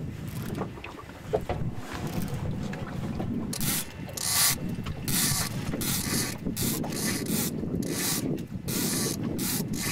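Low rumble of wind and water aboard a small boat. From about three and a half seconds in it is joined by a run of short hissing, rubbing noises, one or two a second.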